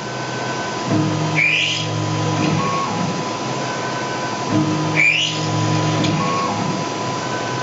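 Tormach PCNC 1100 CNC mill running a quarter-inch drill through aluminum parts, one hole after another. Twice a lower machine hum rises for about a second and a half, with a brief rising high-pitched sound as the drill cuts, over a steady high whine.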